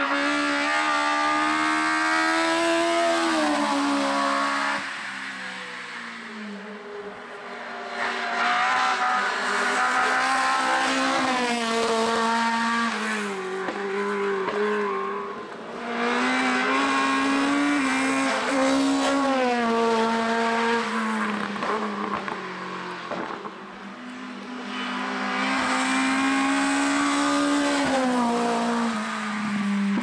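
Hill-climb race car engines at full throttle, revving high and running up through the gears, the pitch falling at each upshift. Several loud runs come and go with quieter gaps between them.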